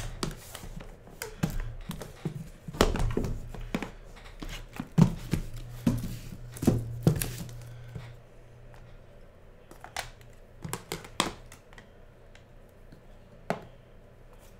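Hands moving and setting down hard plastic card holders and cardboard boxes on a table: a run of sharp clicks, knocks and scrapes, busy in the first half and sparser after.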